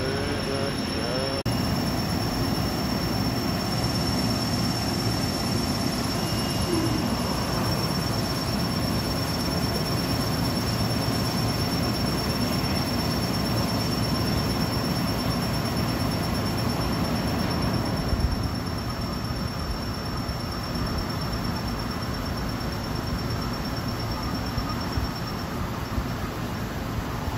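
CNC vertical turret lathe turning a large forged ring: the table spinning, the insert cutting and coolant spraying over the work in a steady mechanical wash, with a thin high whine over it. The sound drops a little about eighteen seconds in.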